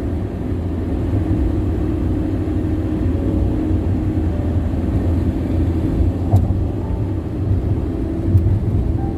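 Loud tyre noise from a car driving on the road: a steady low rumble, with a couple of faint ticks in the second half.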